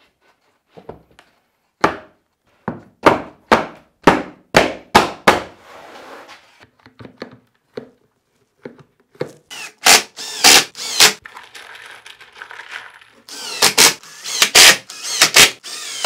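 A run of about eight sharp knocks roughly half a second apart, then a cordless drill/driver driving screws into a plywood drawer box in short bursts, loudest and most continuous near the end.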